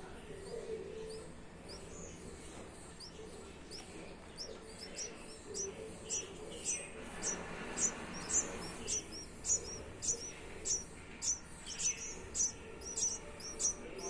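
Red-whiskered bulbul nestlings begging with gaping mouths: a steady series of short, high cheeps, nearly two a second, growing louder from about halfway through.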